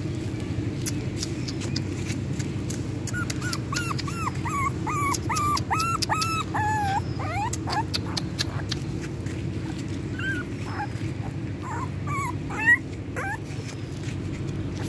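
Young puppy whimpering in a string of short, high-pitched cries, about two to three a second, with a few more cries later, over a steady low background rumble.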